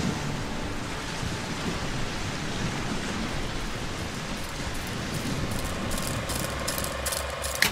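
Steady, even hiss of noise with a few faint crackles near the end.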